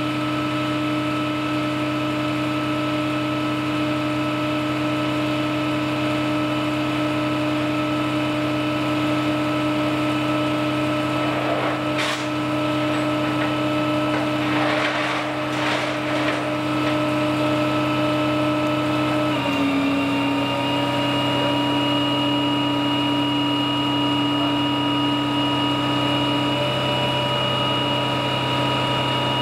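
Flatbed tow truck running with a steady mechanical whine, its pitch shifting slightly about two-thirds of the way through. A few brief rattles sound near the middle.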